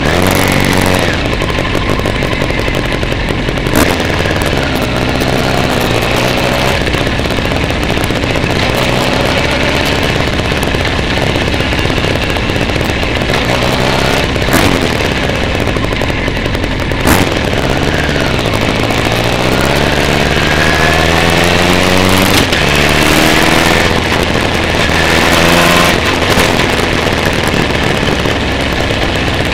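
Motorcycle engine running on the road with wind noise, heard from an onboard camera. The engine note falls as the bike slows about two-thirds of the way through, then rises as it picks up speed again, with a few sharp knocks along the way.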